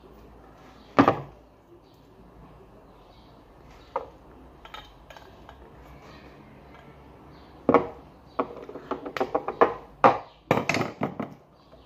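Metal tools and chrome faucet parts knocking and clinking on a tabletop as they are handled: one sharp knock about a second in, a lighter one near four seconds, then a quick run of knocks and clinks over the last four seconds.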